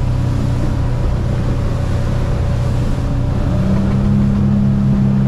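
Outboard motor running steadily at speed on a small boat, with wind and water rushing past the hull. A higher steady engine tone joins in about three and a half seconds in.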